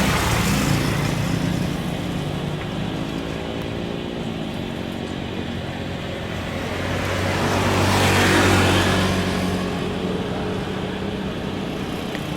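Steady engine noise from passing vehicles, with a low hum and a broad swell that peaks about eight seconds in as one passes close.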